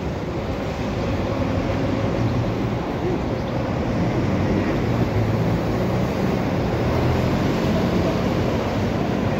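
City bus engine running with a steady low hum as the bus drives up and turns across the intersection close by, over street traffic noise.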